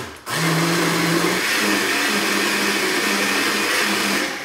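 Countertop blender pureeing a thick mix of beans, onion and chiles: the motor cuts out briefly just after the start, then starts again and runs steadily, its hum stepping slightly higher in pitch after about a second and a half.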